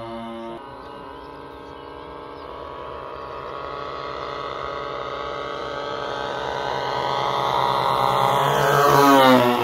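Twin 38 cc gasoline engines of an OV-10 Bronco RC scale model, running together as the plane flies in. They grow steadily louder and drop in pitch as it passes close, near the end.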